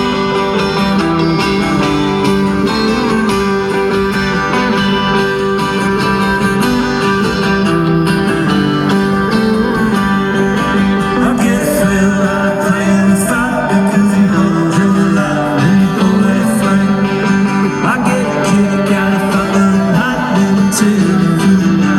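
Live band music heard from the crowd: guitars playing a repeating intro over steady held chords, with a voice joining in about halfway through.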